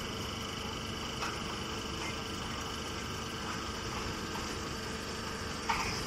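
Hay baling machinery running steadily: a constant mechanical hum with several steady tones. A few brief high chirps or squeaks cut through it, the loudest near the end.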